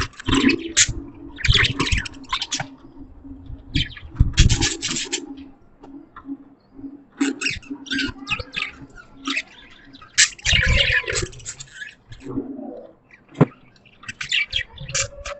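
Budgies (budgerigars) chattering and chirping in bursts of rapid high warbling a second or two long, with short pauses between them. A sharp click is heard near the end.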